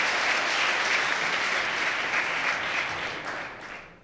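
Arena crowd applauding a won point in table tennis, the clapping dying away over the last second.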